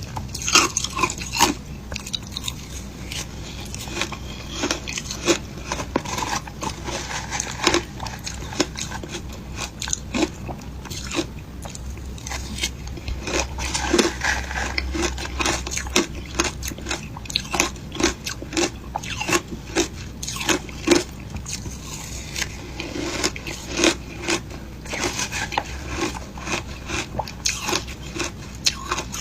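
A person biting and chewing shaved ice, close up: a rapid, irregular series of crunches, with no steady rhythm.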